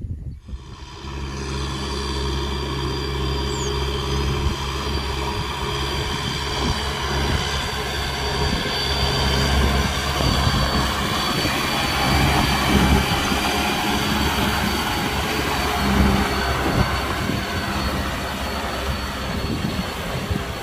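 Kubota M6040 tractor's four-cylinder diesel engine running steadily under load as it pulls a disc plow through a field. The engine comes in about a second in.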